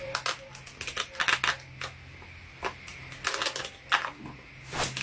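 Paper dragon puppet's paper jaws clacking open and shut, in irregular bursts of sharp clicks, over a faint steady low hum.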